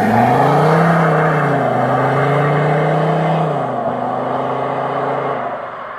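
A Volvo S60 D5's five-cylinder turbodiesel accelerates away. Its pitch rises in the first second, holds, and drops about three and a half seconds in as it shifts up, then the sound fades as the car pulls off into the distance.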